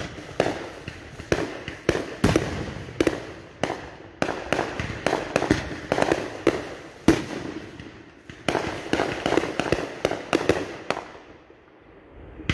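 Many fireworks going off in rapid, irregular succession: dozens of sharp bangs and pops, two or three a second, each with a short echo, thinning out near the end.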